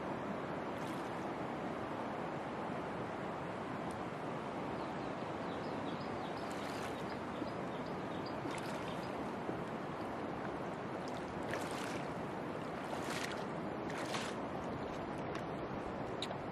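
Shallow river water running steadily, with a few brief splashes in the second half as someone wades through knee-deep water.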